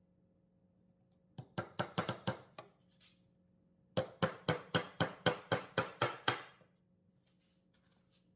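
A small hand hammer driving a nail into a pine board: a short run of quick taps, then after a pause a longer run of about ten evenly spaced blows, about four a second.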